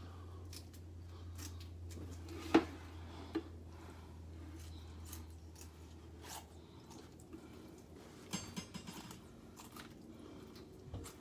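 Kitchen shears snipping loose skin off a raw turkey, with wet squishing as the bird is handled. A sharp clack about two and a half seconds in is the loudest, another follows a second later, and a cluster of small clicks comes near the end. A low steady hum underneath stops about seven seconds in.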